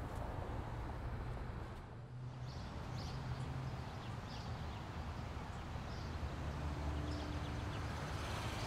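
Steady background ambience with a low hum, and faint short high chirps now and then.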